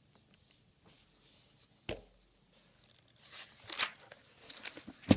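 Paper workbook pages being turned and handled: a short knock about two seconds in, a papery rustle of a sheet sliding a second or so later, and a sharp thump near the end, the loudest sound.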